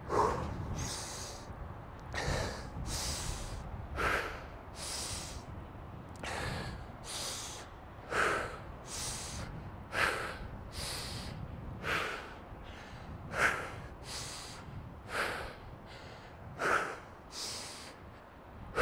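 A man breathing hard and rhythmically through the nose while recovering from a hill sprint, about one breath in or out each second.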